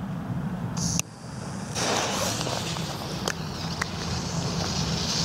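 Lit fuse of a Lesli 'Shocks' firecracker burning on the ground with a steady hiss that starts about two seconds in, with a couple of faint clicks.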